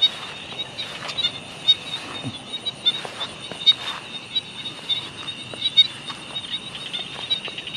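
Night chorus of insects and frogs: a steady, high, pulsing trill with scattered short, sharp calls and sounds over it.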